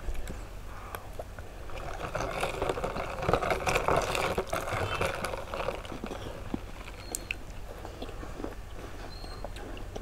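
Close-up chewing and crunching of an Oreo cookie, densest between about two and five seconds in, then thinning to scattered mouth clicks.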